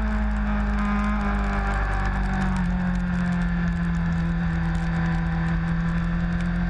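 Sport motorcycle engine running at a steady part-throttle on track, its note easing slightly lower with a small drop in pitch about two and a half seconds in. Wind noise over the onboard microphone.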